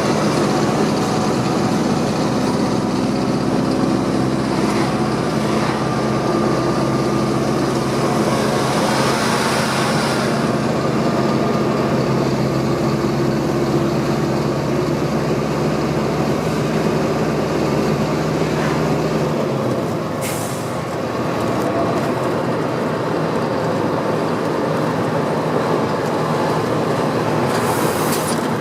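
Mercedes-Benz 1620 truck's turbodiesel engine pulling steadily under way. About two-thirds of the way through, the engine note drops away and the sound briefly dips, as at a gear change, with short hisses at the change and near the end.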